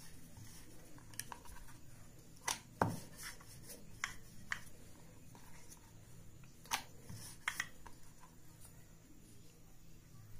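Wooden rolling pin rolling out thick roti dough on a wooden rolling board: quiet rubbing with a handful of sharp wooden clicks and knocks, irregularly spaced.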